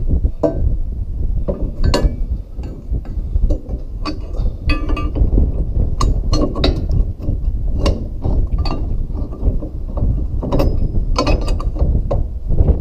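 Irregular metal clinks, knocks and scrapes as a steel pin is worked through the rod-end clevis of a John Deere MX10 rotary cutter's hydraulic lift cylinder and its lift arm, over a steady low rumble of wind on the microphone.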